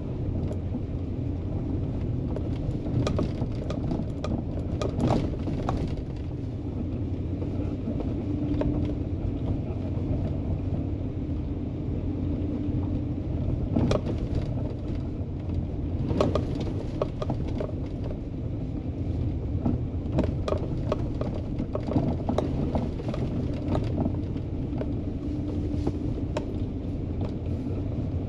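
A vehicle engine running steadily while it drives over a rough, washed-out dirt trail, with frequent knocks and rattles from the bumps.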